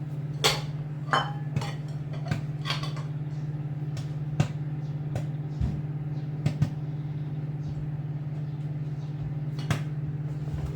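Microwave oven running with a steady hum while caramel popcorn pops sparsely inside the bag, a dozen or so scattered pops: the popping is thinning out late in the cooking.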